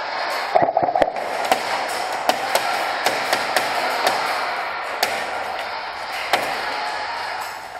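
Airsoft gunfire in an indoor arena: a quick cluster of sharp cracks about half a second in, then irregular single cracks and taps, over a steady background noise.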